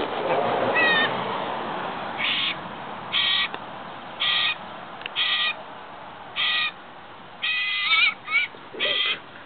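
A young raptor calling: short, high, pitched calls repeated about once a second, with several quicker calls close together near the end, over a low rustling haze that is loudest in the first couple of seconds.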